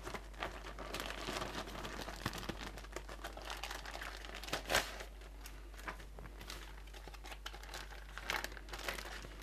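Plastic packaging and clear dry-aging bags crinkling and rustling as they are unpacked by hand, with louder crackles about halfway through and near the end.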